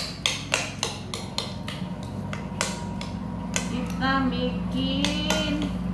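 A metal spoon stirring shaved timun suri and ice in a glass bowl, clinking against the glass in quick, irregular strokes.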